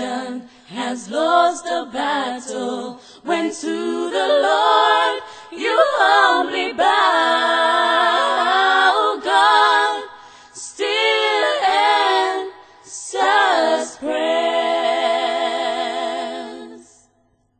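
An a cappella gospel vocal group singing in harmony, with long held notes carrying vibrato. A final chord is held for a few seconds and cuts off near the end.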